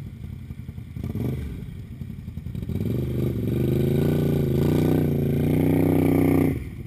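Quad (ATV) engine running low, then revved up from about three seconds in and held high, wavering slightly in pitch, before the throttle is let off suddenly near the end.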